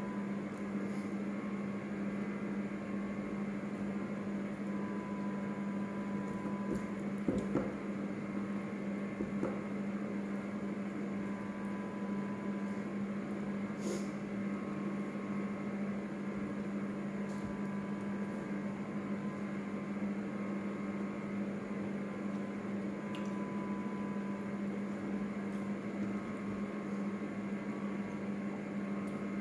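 A steady low electrical hum throughout, with faint wet chewing and squishing of rice and boiled kangkong being eaten by hand, and a few light clicks.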